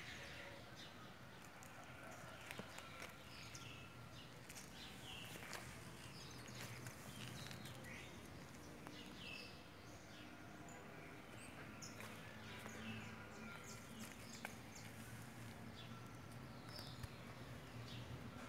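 Faint outdoor ambience: small birds chirping now and then with short falling calls, over a low steady hum.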